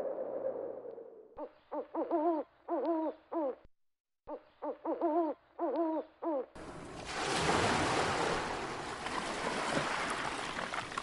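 Recorded owl hooting: a quick series of pitched hoots, a short pause, then the same series again. About six and a half seconds in, it is replaced by a recording of ocean waves washing in as a steady loud surf.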